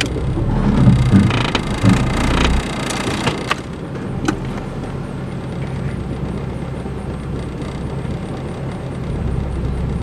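Car engine idling steadily just under 1,000 rpm, heard from inside the cabin. It is a low rumble, stronger for the first couple of seconds and then settling lower, with a few sharp clicks. The idle holds steady here, without the rpm fluctuation being looked for as a sign of a vacuum leak.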